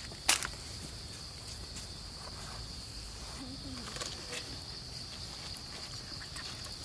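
Steady high-pitched drone of insects, holding one unchanging pitch throughout, with a single sharp crackle about a third of a second in.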